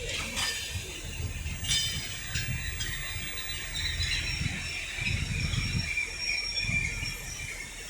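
A train moving slowly over the rails, with a few sharp metallic clanks in the first few seconds and high wheel squeal in the middle, over a pulsing low rumble.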